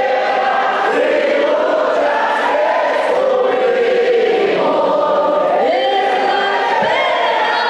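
A choir of many voices singing together.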